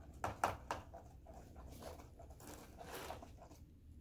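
Spoons stirring sand-and-glue slime in plastic bowls: scraping and sticky squelching, with a few sharper scrapes just under a second in.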